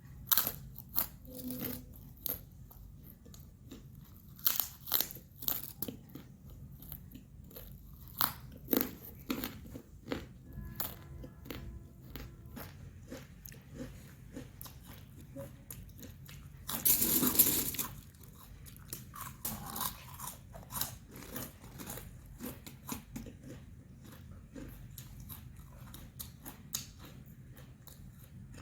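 Close-up crunching and chewing of potato chips: repeated sharp crisp bites and crunches, uneven in spacing, with a louder burst of crackling noise lasting about a second, around seventeen seconds in.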